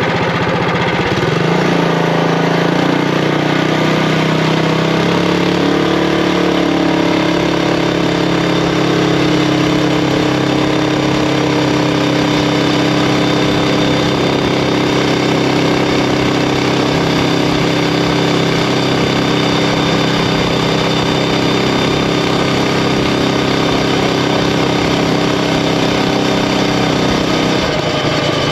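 Predator Ghost 212cc single-cylinder four-stroke engine on a mini bike under full throttle. Its pitch rises over the first five or six seconds as the bike gathers speed, then holds steady at high revs, easing off slightly near the end.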